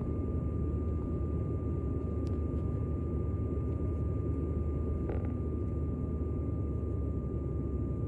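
Steady cabin noise inside a plane in flight: an even low rushing roar with a steady high whine over it.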